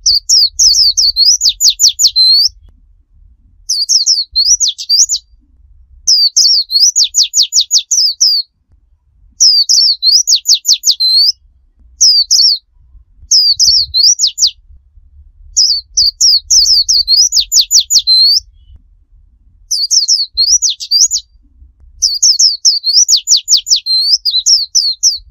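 White-eye (pleci) singing in the 'tembakan' style: high phrases of rapid, steeply falling notes, each one to two and a half seconds long, repeated about nine times with short pauses between.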